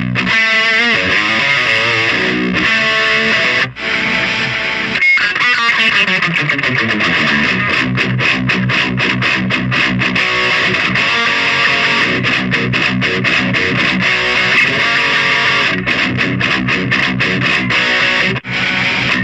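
Electric guitar played through a Solar CHUG distortion pedal, heavily distorted. A wavering bent note in the first second and a sliding run about five seconds in, then fast rhythmic chugging riffs, with two very short breaks.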